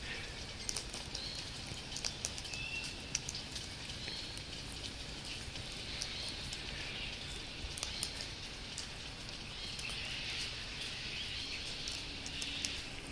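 Sulphur-crested cockatoos cracking sunflower seeds with their beaks from an open hand: many irregular sharp clicks, over a steady hiss of light rain.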